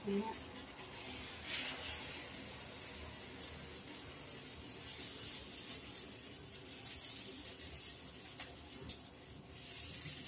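Crepe batter sizzling faintly in a hot frying pan on a gas burner, a steady soft hiss with a few brief swells.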